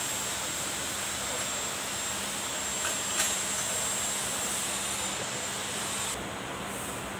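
Steady rushing background noise in a workshop, with a low hum and a thin high tone, and a light click about three seconds in as parts are handled on the bench. The upper hiss falls away about six seconds in.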